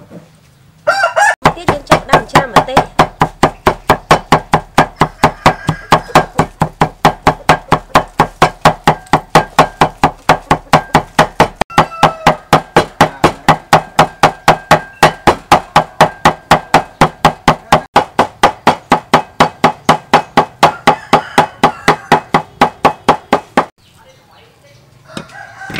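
Steel cleaver chopping dried red chilies on a wooden chopping board: a steady run of sharp knocks, about four a second, that stops near the end.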